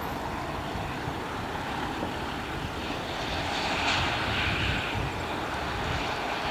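Bombardier Global Express business jet taxiing past, its two rear-mounted Rolls-Royce BR710 turbofans at low taxi power: a steady jet whine and rush that swells slightly about four seconds in.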